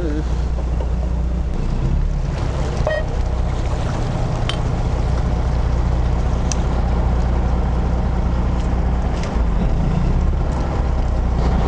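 Boat's engine running steadily as a constant low hum.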